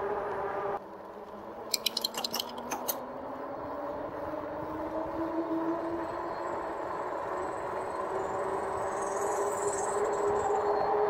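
RadRover electric bike's geared rear hub motor whining, rising slowly in pitch as the bike gathers speed, over tyre and wind noise that grows louder. A quick run of clicks comes about two seconds in.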